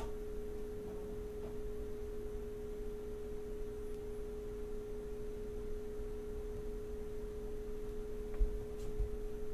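A steady, unchanging single-pitched tone, like a hum, over a faint low rumble, with a brief low bump about eight seconds in.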